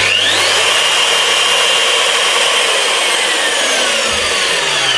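Fein KBM 50 Auto magnetic core drill motor starting up with a rising whine and running steadily. Through the second half its pitch falls steadily as the motor winds down, cut out by the drill's acceleration sensor when the machine is tipped sideways.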